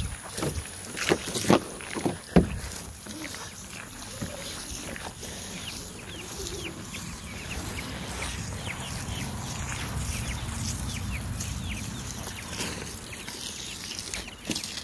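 A few sharp knocks in the first couple of seconds, then a steady low rumble with many faint, short chirps from birds or chickens.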